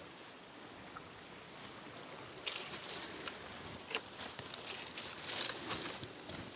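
Dry leaves and dead grass rustling and crackling as someone crouches and handles the leaf litter, starting about two and a half seconds in with irregular crunches, over a steady hiss.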